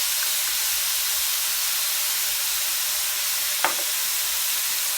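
Minced pork, garlic and chilies sizzling steadily in hot oil in a pan, with the light soy sauce in. A single short knock about three and a half seconds in.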